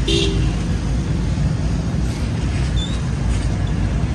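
Steady low rumble of idling emergency vehicles and street traffic, with a short tone right at the start.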